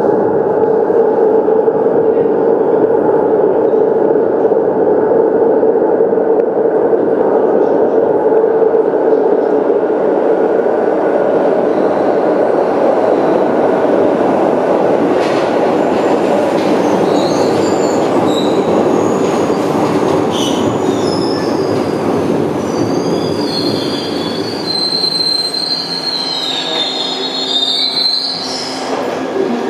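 A Glasgow Subway train rumbles loudly through the tunnel and pulls into the station. From about halfway through, the wheels squeal in high tones, louder over the last few seconds as the train slows alongside the platform.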